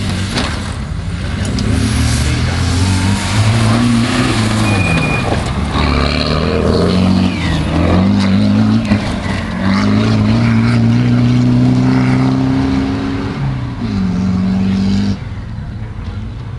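Comp safari racer's V8 engine revving hard as the car drives past over rough dirt, the pitch climbing and falling again and again with throttle and gear changes. It is loudest as the car passes close, then drops off suddenly near the end.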